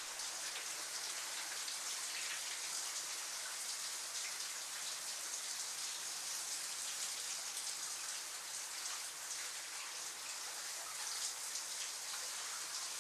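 Steady hiss of falling water that starts abruptly and holds at an even level throughout.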